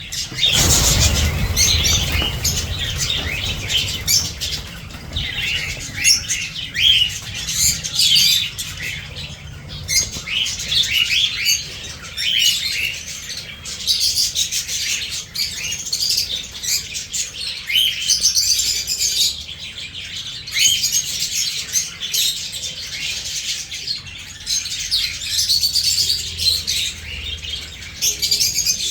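Many small caged pet birds chirping and tweeting continuously, many voices overlapping, with a brief low rumble about a second in.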